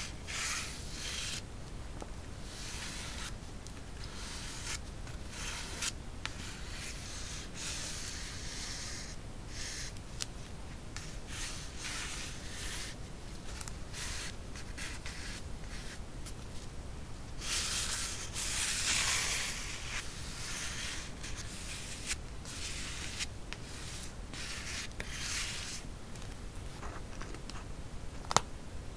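Sheets of paper rubbing and sliding against each other and the journal page as they are handled, a series of scratchy swishes lasting from a moment to a few seconds. A sharp tick sounds near the end.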